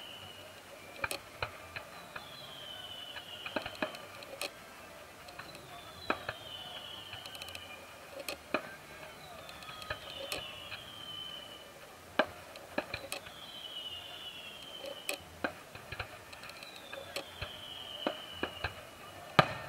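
Fireworks going off at a distance: irregular sharp bangs and cracks, the loudest about twelve seconds in, with a falling whistle that repeats about every second and a half to two seconds.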